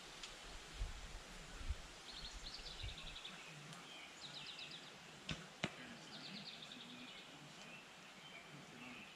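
A traditional bow shot: a sharp snap of the string on release, then the arrow striking the foam 3D target about a third of a second later. High, repeated trills sound faintly in the background.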